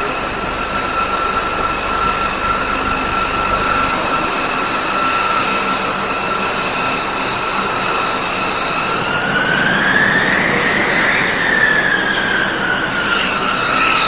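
Northrop Grumman B-2 Spirit's four General Electric F118 turbofan engines whining as the bomber taxis past at low power. The high whine holds steady, then about two-thirds of the way through it swells and rises in pitch before settling back.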